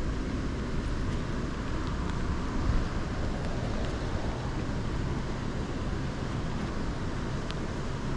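Gusty wind buffeting the microphone as a steady low rumble, with steady rain falling on the pond.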